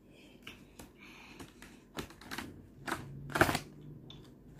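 Small picture cards clicking and rustling as a toddler picks them up and sets them down on a laminated activity page: a handful of light taps and clicks, the loudest about three and a half seconds in.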